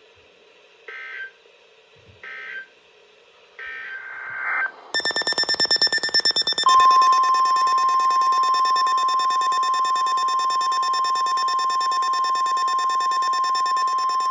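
NOAA Weather Radio alert sequence. It opens with three short bursts of data tone (the SAME header), then a rapid buzzing pulse about five seconds in. From about seven seconds in, the loud, steady, single-pitch 1050 Hz weather radio warning alarm tone sounds without a break.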